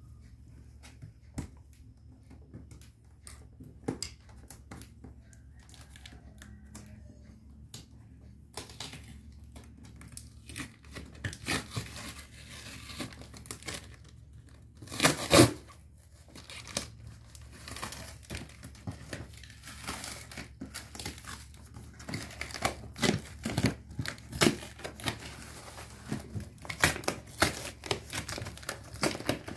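Clear packing tape being peeled and torn off a cardboard TV box, with cardboard rustling and scraping under the hands. A few light knocks at first, then busy handling noise from about a third of the way in, with the loudest rip about halfway.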